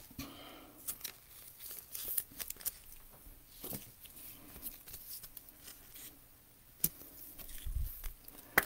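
Trading cards and a clear plastic wrapper being handled: faint crinkling and rustling, with a couple of sharp clicks near the end.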